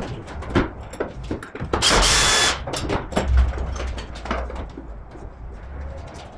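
Metal knocks and clinks of parts and hand tools being worked loose from a car's front end, with one short burst of a power tool, under a second long, about two seconds in.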